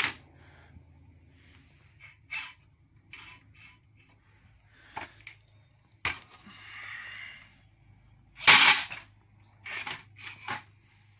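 Sharp knocks and clatters of a small metal combat robot and its motor-driven flipper arm being handled and tested. The loudest is a short burst about eight and a half seconds in, followed by a few more quick knocks.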